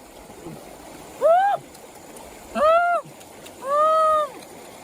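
An animal repeating a hooting call three times, each note rising and falling in pitch, the last one held longer. Under the calls runs a steady hiss of background noise.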